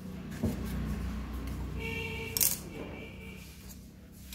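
Tomato slices being dropped into a stainless-steel mixer-grinder jar, with a sharp knock about half a second in and a loud metallic clink about two and a half seconds in, over a steady low hum.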